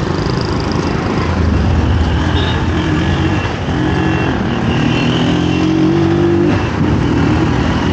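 Motor vehicle engine running close by amid street noise, its pitch rising from about four and a half seconds in and then cutting off suddenly.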